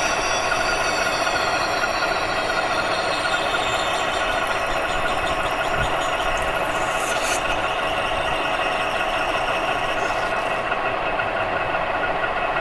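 Metal lathe running steadily with a bronze ring spinning in its chuck, its gearing giving a steady whine. A hand tool is held against the inner edge of the spinning ring, with a brief scrape about seven seconds in.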